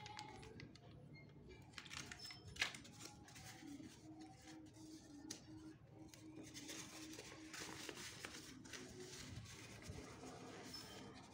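Faint crinkling and rustling of foil sachets and a thin paper wrapper being handled and unfolded, with one sharp click about two and a half seconds in.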